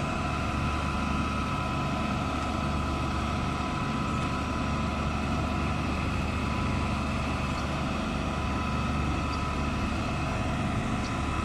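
Truck-mounted concrete boom pump's diesel engine and hydraulics running steadily, with a constant high tone over the low drone.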